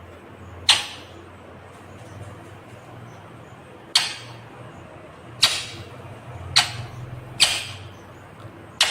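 Indian ringneck parakeet (rose-ringed parakeet) giving six short, shrill calls at uneven intervals, one about a second in and five packed into the second half.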